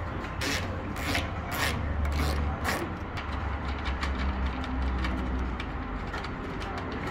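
A ratchet wrench working a 10 mm bolt in a few short raspy strokes in about the first three seconds, then quieter rubbing of hands against wiring and plastic.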